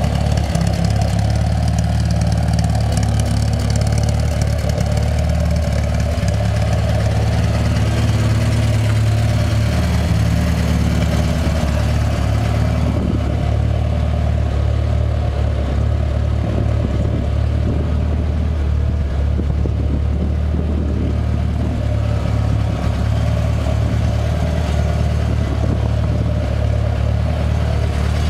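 1965 MG Midget's overhauled BMC A-series four-cylinder engine idling steadily.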